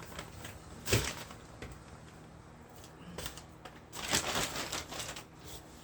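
Items being handled on a tabletop: a single sharp knock about a second in, a few light ticks, then a stretch of crinkling packaging about four seconds in.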